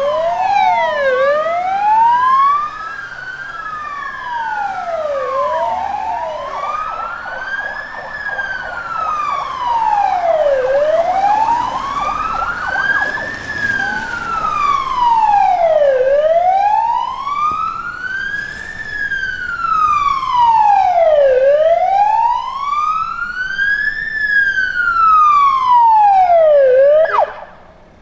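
UK police vehicle sirens on the wail tone, a slow, even rise and fall in pitch repeating about every five seconds. For the first few seconds two sirens sound out of step with each other. The siren cuts off suddenly about a second before the end.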